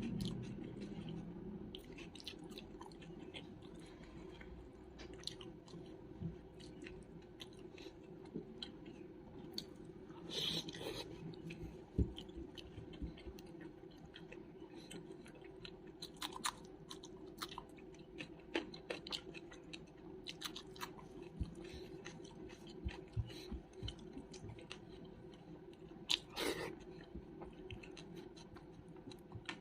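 A person eating and chewing food with faint wet mouth clicks and occasional crunches, with two louder bursts of crunching about ten seconds in and near the end, over a faint steady hum.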